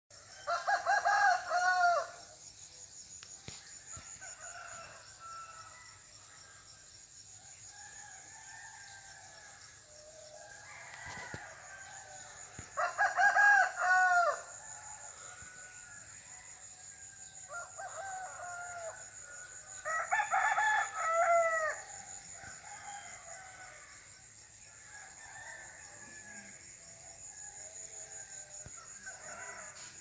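Roosters crowing, several long crows: loud ones near the start, about 13 seconds in and about 20 seconds in, with fainter crows between. A steady high-pitched hum runs underneath.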